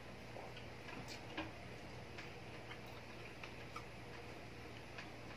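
Faint, scattered eating sounds of a meal eaten by hand: soft clicks and smacks every second or so, the loudest about one and a half seconds in.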